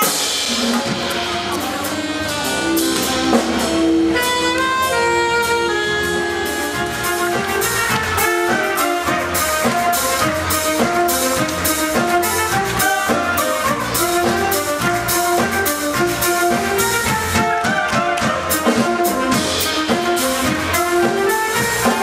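Circus band playing lively jazzy music, melody over a drum kit, with the drum beat growing busier about eight seconds in.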